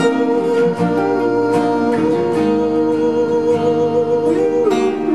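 Pop band playing live: strummed guitar in a steady rhythm, with one long held note over it that drops a little near the end.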